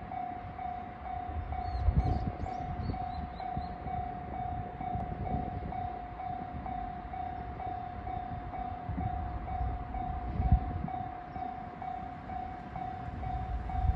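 Japanese railway level-crossing warning bell ringing steadily, about two dings a second, over a low, irregular rumble that peaks about 2 s and 10 s in.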